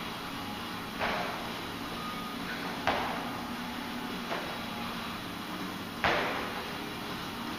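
Four dull thuds of a person dropping to and landing on a gym floor during burpees over a barbell, the second the loudest, each ringing briefly in the room.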